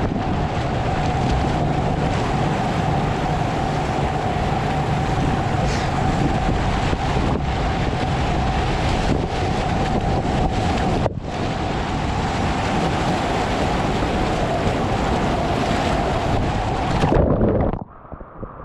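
Whitewater rapids rushing and splashing around a kayak, with waves breaking over the boat and paddle, and wind buffeting the microphone. Near the end the rush cuts off suddenly and turns muffled.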